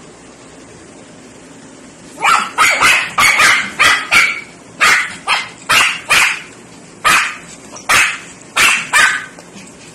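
Small Shih Tzu puppy barking, a run of about fifteen short, high barks at about two a second starting some two seconds in, begging for a grape held out to it.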